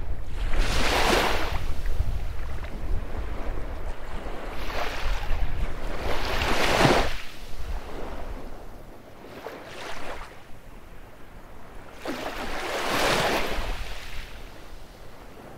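Baltic Sea waves breaking on a beach, about five washes of surf swelling and falling a few seconds apart. Low wind rumble on the microphone through the first half.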